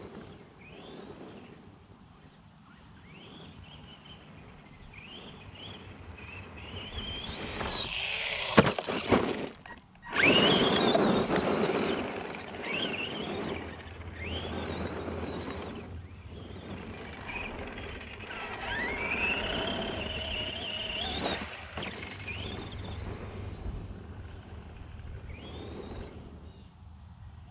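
Electric RC truck being driven on gravel: its motor whines in repeated rising sweeps as it speeds up again and again, getting loud as it comes close. A sharp knock comes about eight and a half seconds in, and a loud rush of noise follows from about ten seconds before the whines fade back.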